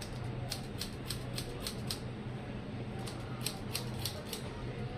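Barber's scissors snipping through wet hair: two quick runs of about six crisp snips each, roughly four a second.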